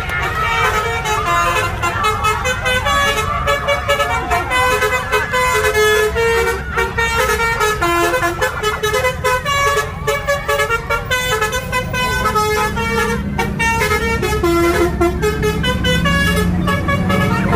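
Multi-tone 'basuri' telolet bus horn playing a tune in short held notes that step up and down in pitch, over the steady low rumble of the bus engine.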